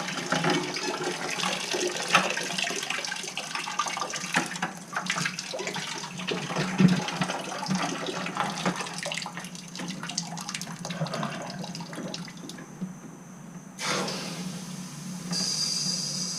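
Water rushing and sputtering with air through a Navien tankless water heater's piping, crackling as the air is forced out: an airlock being purged. About two-thirds of the way through, the flow changes suddenly, and a high hiss follows near the end.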